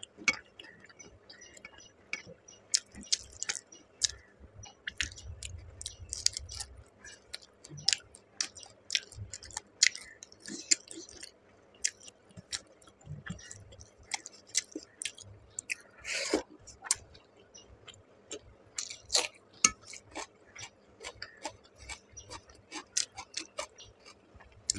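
Close-miked chewing and wet mouth clicks of a person eating rice and curry, with many short irregular clicks throughout and one longer, louder sound about sixteen seconds in.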